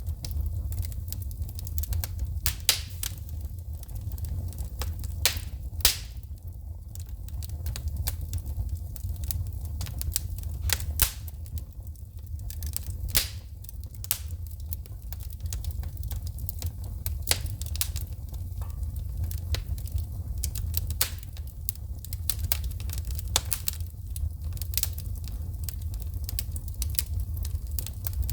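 Wood fire burning in a fireplace, crackling and popping as sparks shoot out: irregular sharp snaps, some much louder than others, over a steady low rumble.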